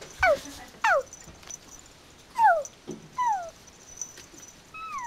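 Yorkshire terrier puppy whining and yipping during play, about six short, high-pitched calls, each sliding sharply down in pitch.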